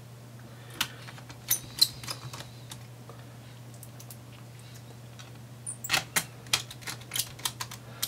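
Light clicks and taps as a laptop cooling fan is set back in place and screwed down with a small Phillips screwdriver: a few in the first two seconds, then a quick run of them over the last two. A low steady hum runs underneath.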